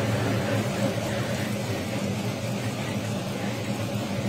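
Meat frying on a flat-top griddle, with a light sizzle over a steady low mechanical hum.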